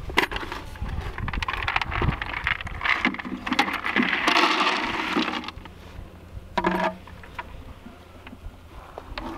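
Dry horse feed rattling as it is tipped from a plastic bucket into a plastic fence-hung feeder, with a rush of pellets about four seconds in, while a horse noses and eats from the feeder.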